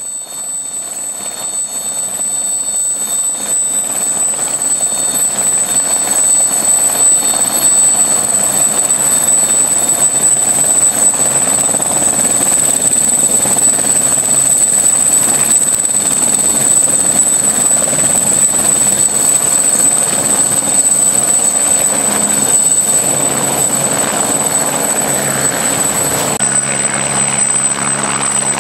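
Aérospatiale SE 313B Alouette II helicopter running before take-off: the steady high-pitched whine of its Turbomeca Artouste turboshaft over the rush of the turning main rotor, swelling over the first few seconds. The sound shifts a couple of seconds before the end as the helicopter lifts off.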